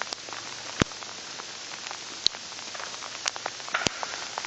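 Freezing rain falling in an ice storm: a steady hiss with many scattered sharp ticks and clicks of ice striking, and three louder cracks about a second in, just after two seconds and near four seconds.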